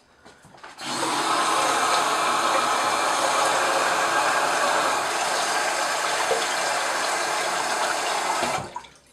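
A bathroom tap running into the sink in a steady rush: hot water being run to heat the razor blade during a wet shave. It starts about a second in and is shut off near the end.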